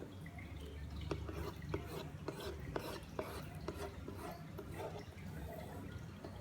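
A pen scratching and tapping as it draws a door outline on a paper-covered soap box, with a run of small sharp clicks in the first half, over a steady low hum.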